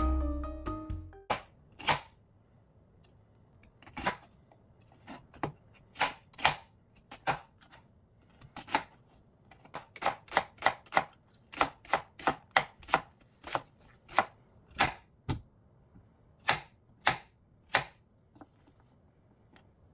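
Kitchen knife chopping food on a cutting board: about thirty separate sharp knocks at an uneven pace, with a quicker run of about three a second in the middle. Background music fades out in the first second.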